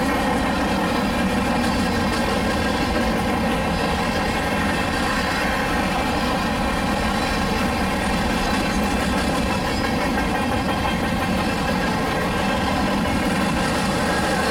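A freight train of covered hopper cars rolling past in a steady rumble, with a steady drone running underneath.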